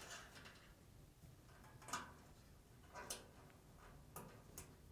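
Near silence, with about four faint, short clicks and light taps spread through it, as parts are handled during reassembly.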